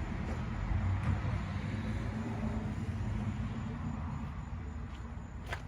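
Steady low mechanical hum, like a motor or engine running, with a sharp click near the end.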